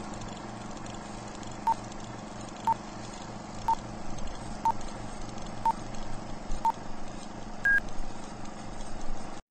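Film-leader countdown sound effect: a steady crackle and hiss with a short beep once a second, six times, then one final higher-pitched beep.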